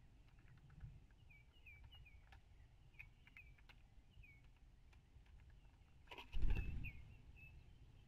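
Blue jay's beak making light clicks and taps as it picks at peanuts and seeds in a plastic tray feeder, with faint short chirps of other birds in the background. About six seconds in, a low thump with a brief rush of air as the jay takes off from the feeder.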